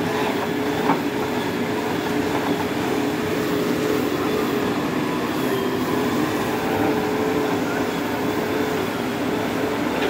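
JCB 4DX backhoe loader's diesel engine running steadily with a constant hum while the backhoe works its bucket; a single knock about a second in.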